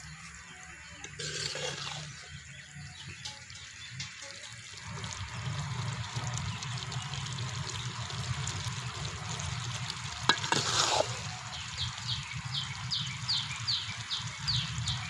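Quail pepper gravy simmering and sizzling in a pan as its liquid reduces over a low flame, with a couple of brief stirring scrapes.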